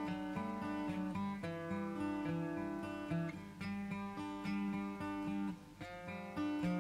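Background music: an acoustic guitar picking a steady run of notes, a few to the second.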